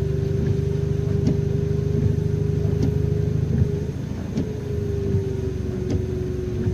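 Car engine idling, a steady hum with a faint tick about every second and a half; the hum drops and settles slightly lower about four seconds in.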